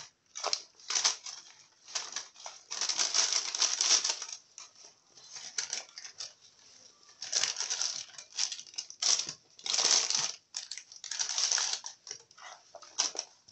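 Baking paper and aluminium foil rustling and crinkling in irregular bursts as handfuls of seasoned meat and vegetables are laid onto the paper and it is folded over.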